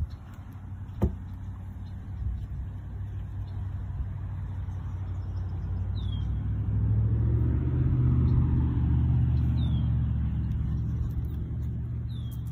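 Low engine drone, swelling to its loudest about halfway through and easing off near the end, like a passing motor. Three short, high, falling chirps sound over it.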